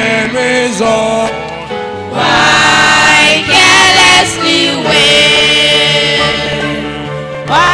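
Youth choir singing a gospel song together in several voices, growing louder about two seconds in.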